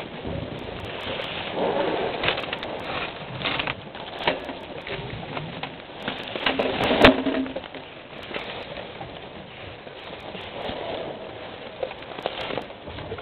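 Close-up handling noise from an African elephant at the camera: scrapes, clicks and knocks as its skin brushes the camera, with rustling of the brush. A louder knock comes about seven seconds in.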